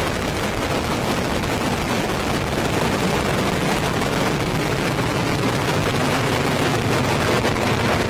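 Falcon 9 first stage's nine Merlin engines running at full thrust in the first seconds after liftoff: a loud, steady, rumbling roar full of rapid crackle.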